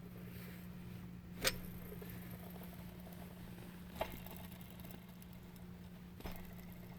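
Bearing turning with a steady low hum and rumble, with three faint clicks spaced a couple of seconds apart. The owner finds the bearing sound weird.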